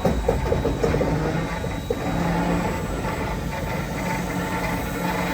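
Steam locomotive on a turntable: a steady mechanical noise with a faint hum that comes and goes, and a few short clicks in the first second.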